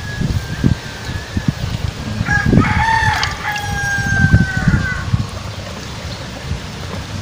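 A rooster crows once, one long call starting about two and a half seconds in, over low rustling and handling thumps close to the microphone.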